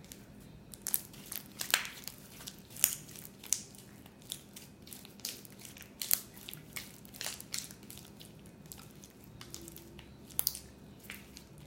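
Slime being kneaded and mixed by hand, sticky wet clicks and pops coming irregularly, a few a second, as caramel softening paste is worked in and thins it.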